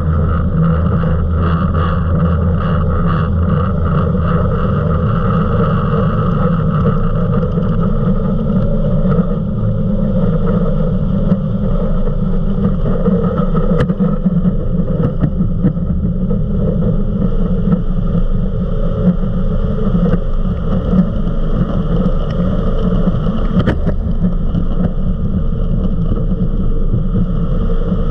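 Eliminator 31 XO Speedster performance boat under power, a low, steady engine drone mixed with the rush of water and wind as it accelerates from about 17 to about 64 mph.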